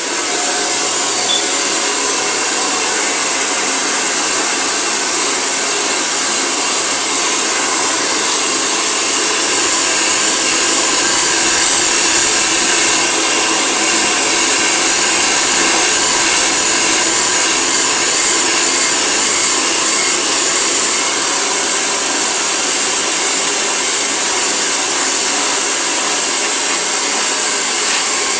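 Handheld hair dryer blowing steadily on wet hair: a loud, even fan-and-air rush with a high whine, switched on just as it begins.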